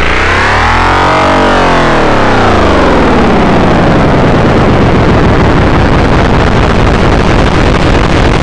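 Loud, heavily distorted electronic alarm tone. Its buzzing pitch sweeps up and back down in an arch over the first few seconds, then turns into a dense, harsh buzz.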